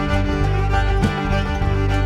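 Background instrumental music.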